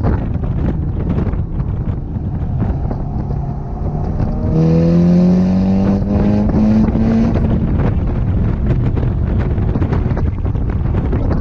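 Mitsubishi Lancer Evolution IX MR's turbocharged four-cylinder engine heard from inside the cabin over steady wind and road rumble. About four and a half seconds in, the engine note climbs steadily in pitch for about three seconds as the car accelerates hard, then fades back into the rumble.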